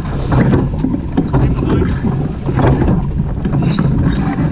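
Surf boat being rowed by its crew: water rushing and splashing, with a surge about every second and a bit as the oars stroke, and heavy wind on the microphone.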